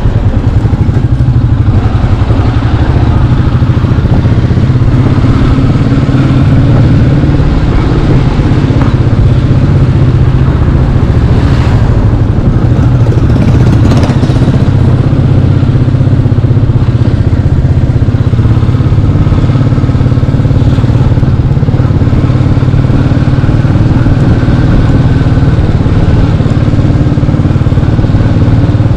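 Royal Enfield Meteor 350's single-cylinder engine running steadily while the motorcycle is ridden.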